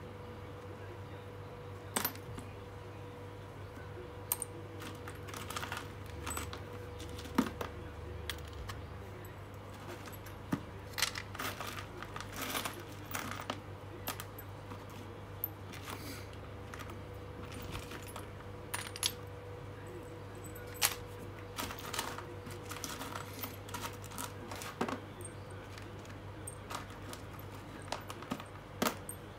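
Loose old metal screws clinking and rattling as a hand sifts through a plastic tub of them: irregular sharp clicks, sometimes several in quick succession.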